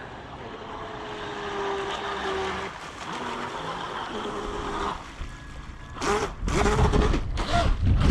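Radio-controlled electric boat on a 6S battery running across the water toward shore: a faint wavering motor whine over water noise. It grows much louder and rougher about six seconds in as the boat comes close, splashing.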